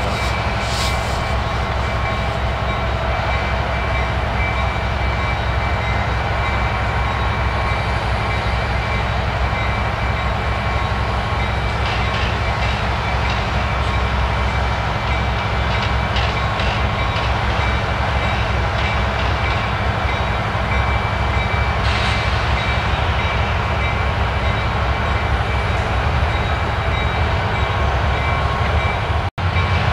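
Diesel-electric locomotives of a freight train's multi-unit lead consist running with the throttle up while the train stands ready to depart: a steady, deep engine drone, with a few faint clicks.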